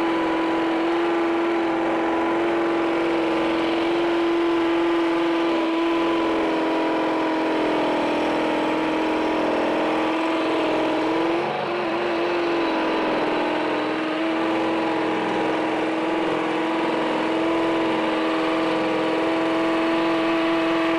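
Metabo HPT 18-volt cordless hammer drill running in hammer mode, a masonry bit boring a 1/2-inch hole into a concrete block. The motor whine holds a steady pitch under load, wavering and dipping briefly about halfway through.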